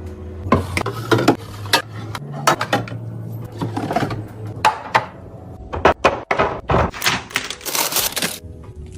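Repeated knocks and clatter of containers and dishes being handled, set down and moved about, with a faint steady low hum underneath.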